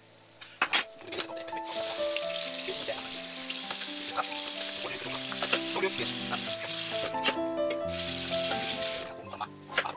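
Kitchen tap running into a metal sink as potatoes are rinsed under it: a steady rush of water that stops for a moment about seven seconds in, then runs again briefly. A few sharp knocks of kitchenware come just before the water starts, over background music.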